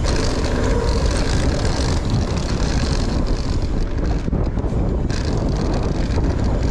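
Steady wind noise rumbling on the microphone of a camera riding a mountain bike at speed, mixed with the hiss of tyres on the trail and scattered small clicks and rattles from the bike.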